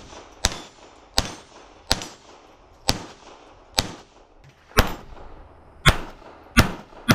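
A Beretta 87 Target .22 LR pistol firing a string of nine single shots, about one a second.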